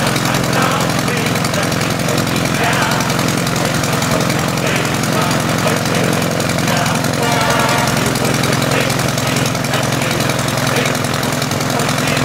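Small piston aero engine of the Port Victoria PV8 Eastchurch Kitten replica running steadily on the ground, a loud, even buzz with no change in speed.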